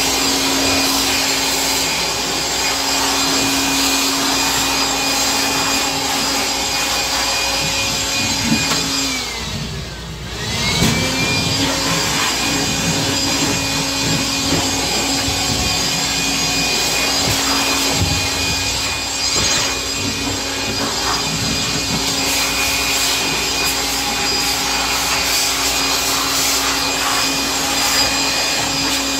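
Makita electric hand blower running steadily with a motor whine and a rush of air, blowing dust out of an electrical control panel. About nine seconds in it winds down almost to a stop, then is switched back on and spins up to full speed again.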